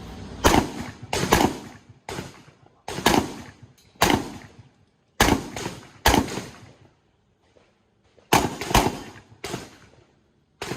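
A string of about ten shotgun shots fired in rapid succession at uneven intervals, each a sharp bang with a short echoing tail. There is a pause of about two seconds midway, then the firing resumes with a quick pair.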